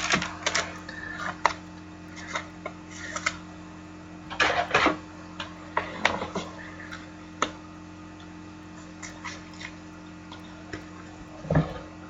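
Trading cards being handled: scattered soft rustles and light clicks of card stock and sleeves, with a louder cluster about four seconds in and another near the end, over a steady electrical hum.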